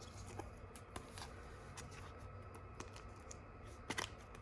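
Faint clicks and light scrapes of trading cards being handled and stacked, with a short cluster of louder taps near the end.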